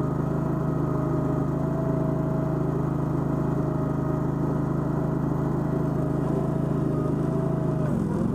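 Toro Dingo mini skid steer's small gasoline engine running steadily, with a thin steady whine above the engine drone. About eight seconds in, the engine briefly drops in pitch, as under a sudden load, and recovers at once.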